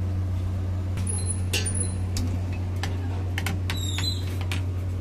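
Steady low roar of a gas burner under a wok, with scattered clinks and taps of metal utensils over it.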